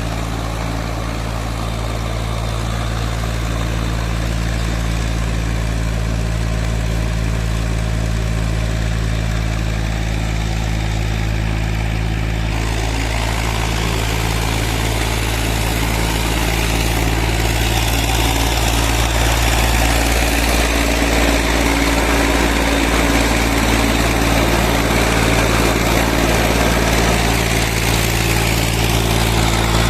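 Heavy diesel machinery engine running steadily, getting louder and harsher about 12 seconds in and again around 18 seconds.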